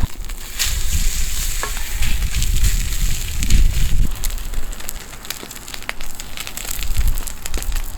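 Pork sizzling in a hot pan: a steady hiss dotted with many small spitting pops, over an uneven, gusty low rumble of strong wind on the microphone.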